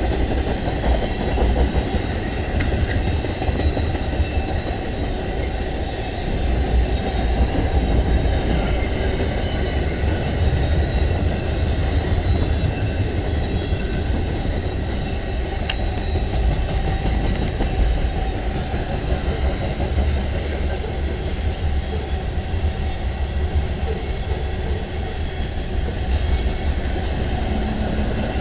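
Freight cars of a CN train rolling past, a steady rumble of steel wheels on the rails.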